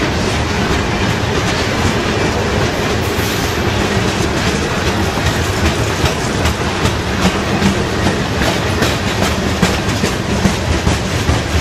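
Freight train tank cars rolling past close by: a steady rumble of steel wheels on rail, with rapid clicks from the wheels crossing rail joints, more frequent in the second half.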